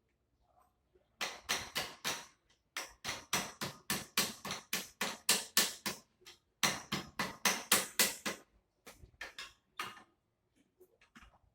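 Rapid hammer blows on an iron bar driven into a motorcycle's exhaust muffler to punch a hole through its inside, about three or four strikes a second. The blows pause briefly about six seconds in, start again, and turn slower and lighter near the end.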